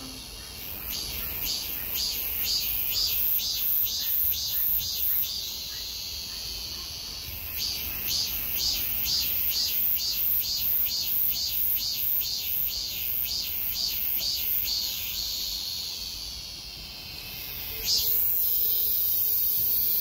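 Cicadas singing: a loud, high-pitched song in rapid pulses, about two to three a second, with stretches of steady buzzing between runs. It fades briefly, then a louder steady buzz sets in near the end.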